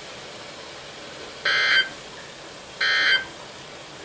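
Emergency Alert System end-of-message data bursts on NOAA Weather Radio: two short, harsh digital warbles about a second and a half apart, with a third starting at the very end. They signal the close of the severe thunderstorm warning. A faint steady hiss lies between them.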